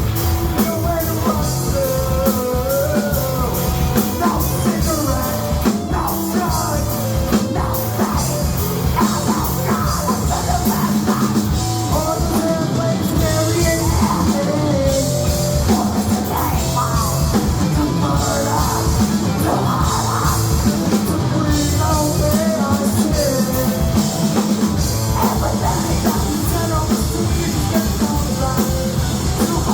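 Rock song with drums and singing, loud and steady throughout.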